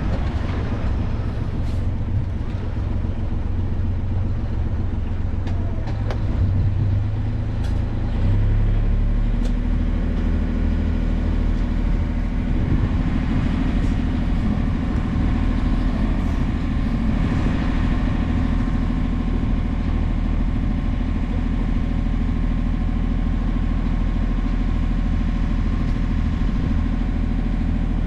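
Sailboat's inboard engine running steadily while motoring; about eight seconds in its note changes and it grows slightly louder.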